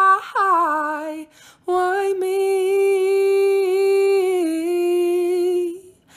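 A single voice singing or humming long held notes of a slow, mournful refrain. After a short break about a second in, one long note is held for about four seconds, dipping slightly in pitch before it fades.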